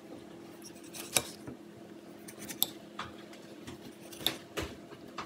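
Kitchen knife slicing through a tomato, its blade clicking sharply against the china plate beneath at uneven intervals, about seven cuts in all.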